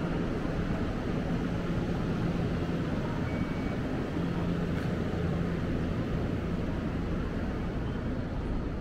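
Steady low hum of a Nankai electric commuter train standing at the platform, with a low droning tone that drops out and comes back a few times.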